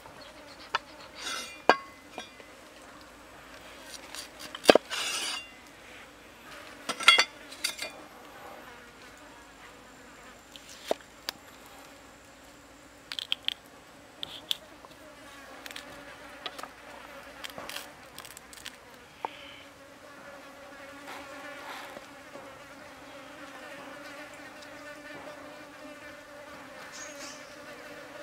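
Cleaver chopping broccoli on a wooden block: sharp knocks of the blade on the wood and short crunches of the stem, scattered through the first two-thirds. Under them, and growing stronger in the later part, a steady buzz of flying insects.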